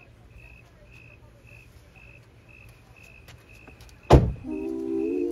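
A car's warning chime repeating quietly about two to three times a second while the driver's door stands open, then the door slammed shut about four seconds in, the loudest sound. Right after the slam, music with a hummed melody comes in.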